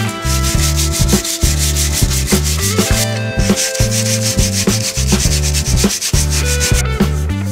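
Background music with a steady beat, a bass line stepping between notes and a bright shaker-like rattle on each beat.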